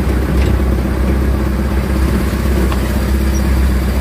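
Diesel dump truck engine running steadily at low revs, a loud, even low hum.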